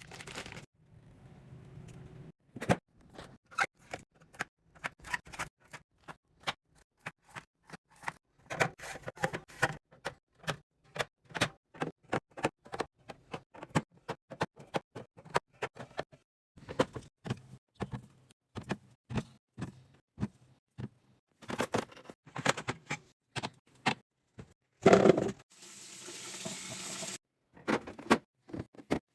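Many quick irregular clicks and taps of small packaged items and containers being handled and set down while a fridge or pantry is restocked, with a short louder rustling hiss near the end.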